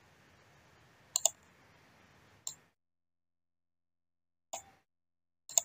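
A few short, sharp clicks of a computer mouse: a quick double click about a second in, then single clicks every second or two, with near silence between.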